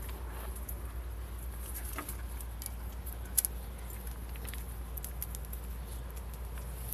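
Two dogs scuffling over a plush tug toy: light pattering of paws and scattered clicks of claws, with one sharp click about three and a half seconds in, over a steady low hum.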